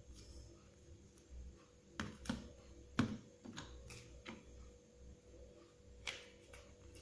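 Scattered light clicks and taps as a smartphone and its small parts are handled on a repair bench, about half a dozen sharp ticks spread irregularly over faint room tone.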